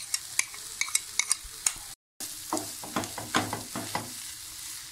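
Oil sizzling in a nonstick frying pan as mashed potato is scraped off a plate into it, with sharp clicking taps in the first two seconds. The sound cuts out briefly about two seconds in, then a wooden spatula scrapes and stirs the potato into the fried onion masala.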